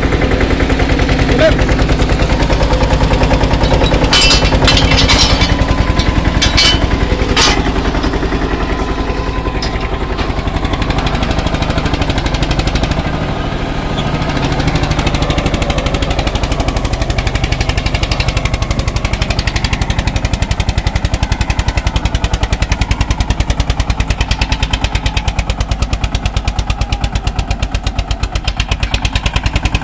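Eicher 242 tractor's diesel engine running steadily under load, with a rapid, even exhaust beat as it pulls a disc harrow. Several sharp clicks come between about four and eight seconds in.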